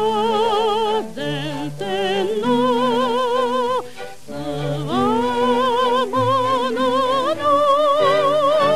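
Old 1940s recording of a Japanese wartime march song: a singer holds long notes with a wide vibrato over instrumental accompaniment. About seven seconds in, the melody climbs to a higher held note.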